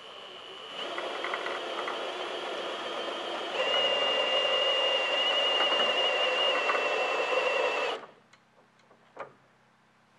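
Cordless drill driving the winch of a ceiling hoist, lifting a Jeep Wrangler hardtop: a steady motor whine that starts soft, gets louder about a second in and louder again about three and a half seconds in, then stops suddenly about eight seconds in.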